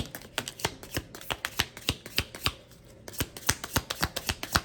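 Tarot cards being shuffled by hand: a quick run of crisp card slaps and clicks, several a second, with a short break about two and a half seconds in.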